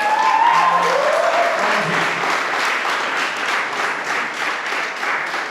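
Spectators applauding and cheering, with a few shouted calls in the first two seconds, as the clapping carries on steadily.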